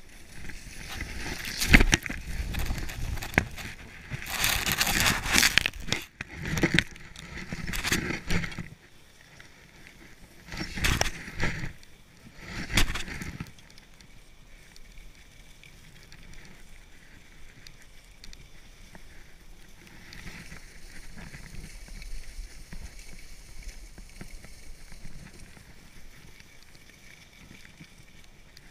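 Skis scraping across packed snow in a run of turns, with about five loud surges in the first half, then a quieter steady rush of gliding.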